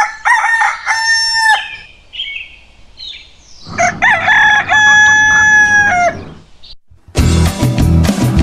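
A rooster crows twice, the second crow longer with a long held note that drops at the end, with a few short higher calls between the crows. About seven seconds in, music with strummed guitar starts.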